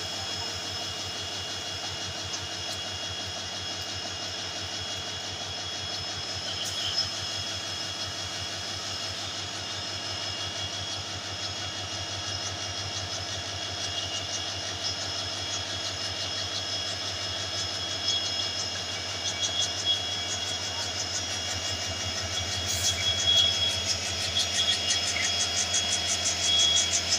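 WDP4D diesel locomotive's two-stroke EMD 16-cylinder engine running with a steady throb at low throttle, growing louder from about two-thirds of the way in as the locomotive pulls out along the platform and passes close by.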